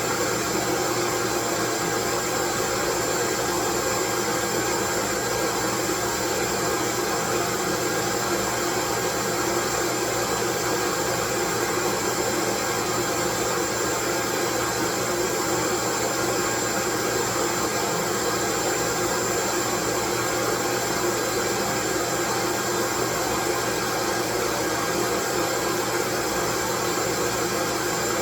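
Steady, unchanging white noise hiss spread across the whole range, with a few faint steady tones in it, the clearest a thin high whine.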